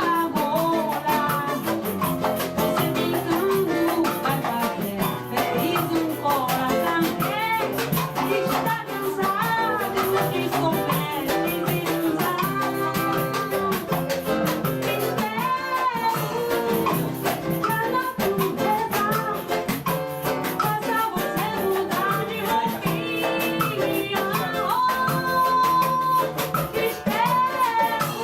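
Live samba band playing: cavaquinho and seven-string guitar over a steady rhythm from pandeiro, tantan and surdo.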